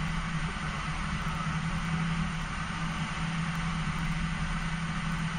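Steady flight-deck noise of an airliner taxiing at idle: the jet engines' idle and the cockpit air and equipment fans make an even hiss over a steady low hum.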